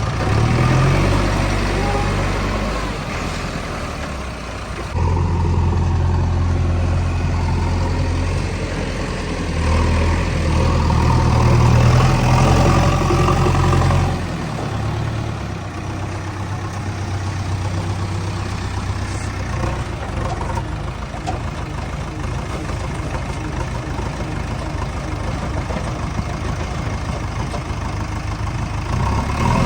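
JCB 3DX backhoe loader's diesel engine running, rising to a higher, louder pitch about five seconds in and swelling again around ten to fourteen seconds, then dropping back to a lower steady run.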